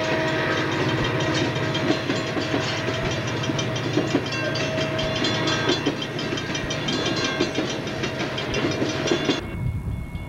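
Southern Pacific diesel freight locomotives running past at close range, followed by container cars rolling by with rapid clickety-clack of wheels on the rails. About nine seconds in the sound cuts abruptly to a much quieter low rumble.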